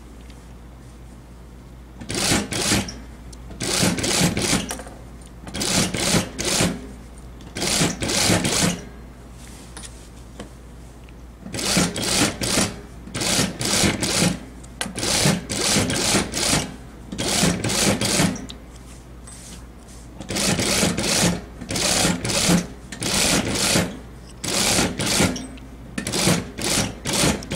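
Industrial single-needle sewing machine topstitching a blouse collar in about a dozen short runs of fast stitching, stopping and starting as the fabric is guided round the edge. A steady low motor hum carries on between the runs.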